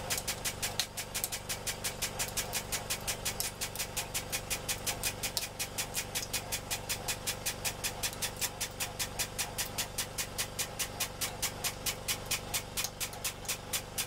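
Hydraulic press running under load: a steady hum with a rapid, even ticking of about five a second.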